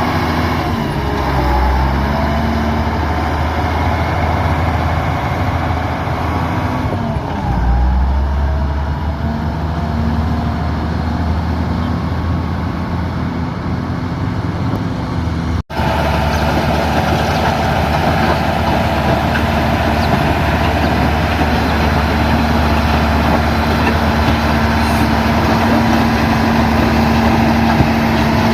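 Motor grader's diesel engine running steadily under working load. Its pitch dips and recovers twice, once early on and again about seven seconds in. The sound cuts out for an instant about sixteen seconds in.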